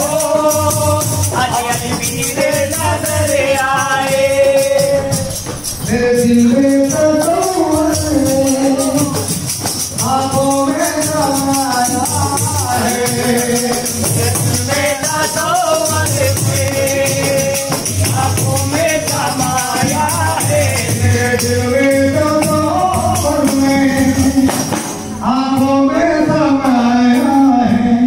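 A man singing a Sufi devotional song in long, wavering phrases, accompanied by handheld frame drums beaten in a steady rhythm.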